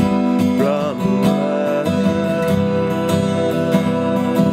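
Steel-string acoustic guitar strummed in a steady rhythm, chord strokes ringing into one another.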